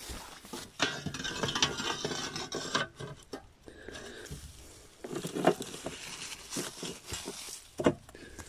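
Dry grass rustling as a hand handles the thin sheet-metal slides of a live trap, the plates scraping and clinking, with two sharper knocks about five and eight seconds in.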